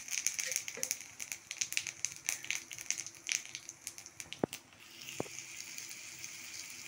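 Cumin seeds crackling and spluttering in hot mustard oil in an iron karahi. About four and a half seconds in come two sharp knocks, and the crackle gives way to a steady sizzle.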